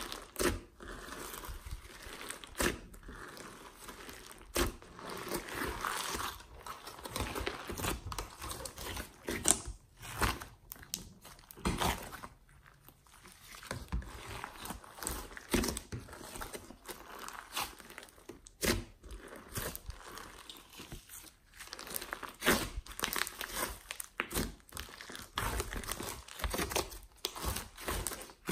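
Hands squeezing, folding and stretching a large mass of glossy slime mixed with clay, giving irregular sticky crackles and snaps.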